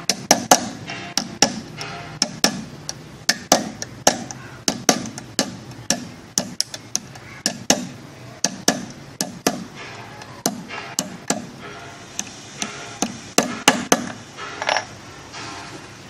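A hammer tapping small nails to fix the entrance-gate strip onto a beehive box. The blows come in a long, uneven series of sharp strikes, about two or three a second, thin out for a moment around the middle, and stop shortly before the end.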